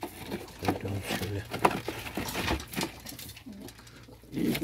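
Domestic pigeons cooing, with scattered rustles and clicks from plastic nest boxes and bedding being handled. The cooing grows louder near the end.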